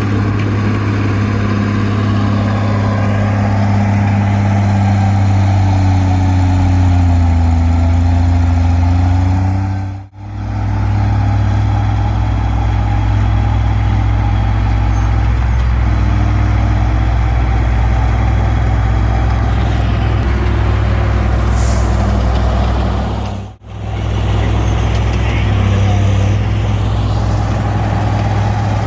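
Komatsu D20P bulldozer's diesel engine running steadily with a deep hum, its pitch sagging and recovering briefly under load as it pushes. The sound drops out for an instant twice.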